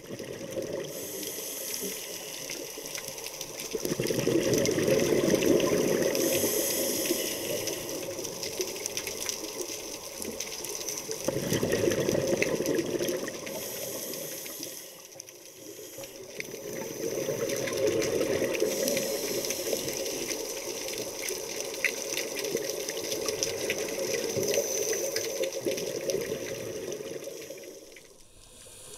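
Scuba regulator breathing heard underwater: four long, rumbling gushes of exhaled bubbles, roughly every six seconds, over a steady hiss.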